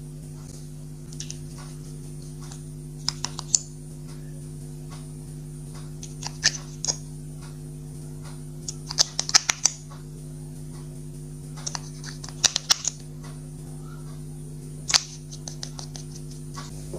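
Clear slime being worked by hand with makeup mixed in, giving short bunches of sharp clicks and crackles every two to three seconds over a steady low hum.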